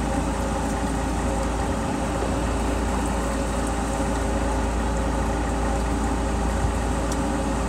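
A fishing boat's engine running steadily: an even low hum with a few steady tones and no change in speed.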